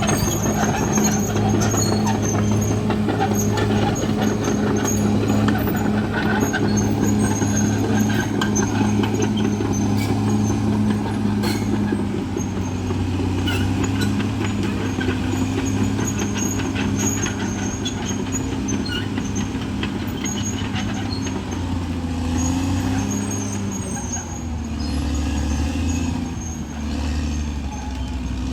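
Caterpillar D6R XL bulldozer's diesel engine running steadily under load, its pitch dipping and wavering near the end.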